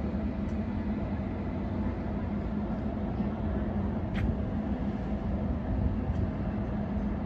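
Steady low mechanical rumble with an even hum, like running engines or machinery, and a single short click about four seconds in.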